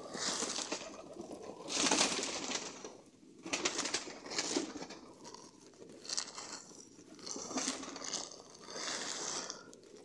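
A flock of domestic pigeons feeding on the ground: cooing, with rustling from pecking and shuffling birds and wing flutters that come in surges every second or two.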